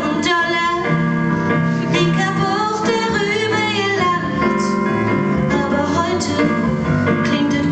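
A woman singing a German Schlager song live into a microphone, with instrumental accompaniment.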